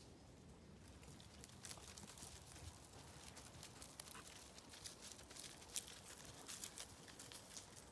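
Faint, irregular crackling and snapping of twigs and dry leaf litter being stepped on, starting about a second and a half in.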